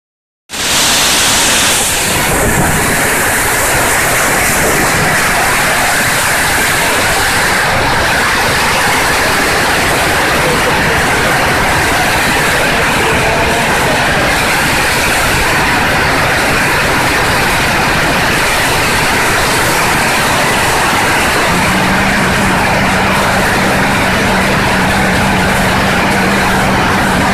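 Torrential rain driven by very strong wind, a loud, steady rush of rain and wind. About three quarters of the way through, a steady low hum joins it.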